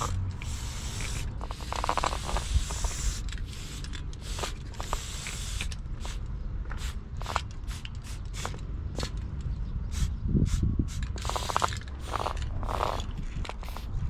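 Aerosol spray paint cans being used: short bursts of spray hiss, and the mixing ball rattling inside a can as it is shaken, about two seconds in and again near the end, with clicks as the cans are handled. A steady low rumble runs underneath.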